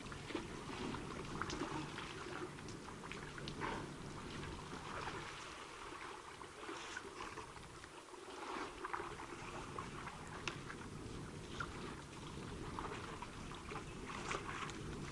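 African elephants drinking at a waterhole: scattered, irregular splashes and trickles of water as they draw and pour it with their trunks, over a steady low background noise.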